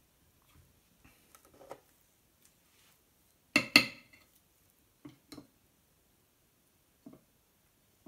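Metal fork clinking twice against a small serving bowl about three and a half seconds in, then a few softer taps and scrapes as it scoops a red topping.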